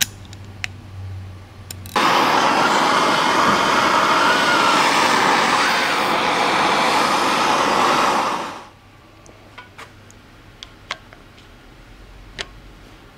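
A handheld heating tool running with a loud, steady rushing hiss for about six seconds, starting abruptly and fading out, as it heats the shock reservoir's threaded cap to soften the threadlocker before it is broken loose. A few faint clicks follow.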